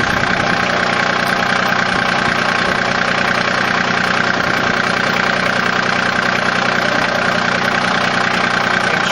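John Deere 2305 compact tractor's three-cylinder diesel engine idling steadily.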